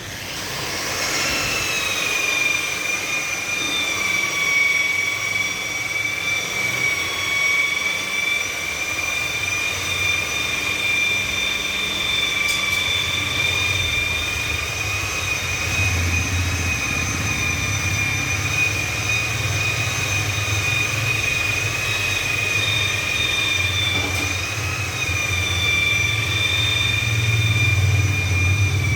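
Handheld power tool used on car paintwork spinning up about a second in, then running steadily with a high whine and a low rumble.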